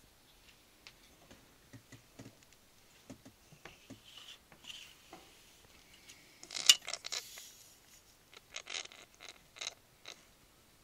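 Budgerigar coughing: short, sharp coughs in clusters, the loudest about two-thirds of the way through and followed by a quick run of clicks, with faint scratching and clicking between.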